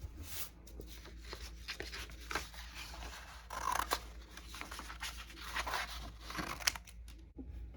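Scissors cutting brown paper into small pieces: a run of irregular snips with paper rustling between them.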